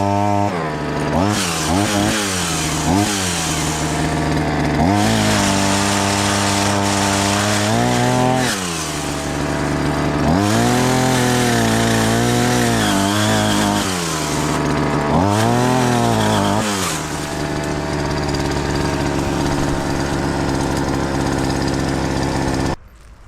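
Shindaiwa 280TS two-stroke chainsaw running at high revs, its engine note dipping and recovering again and again as it is loaded in the cut, with several longer sags of a few seconds. It runs steadily after that and cuts off abruptly near the end.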